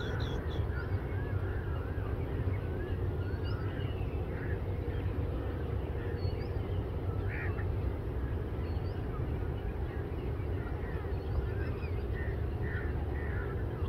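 Birds chirping, with many short rising and falling calls, over a steady low rumble.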